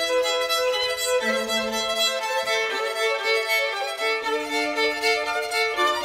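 Background music: a violin playing a melody of held notes.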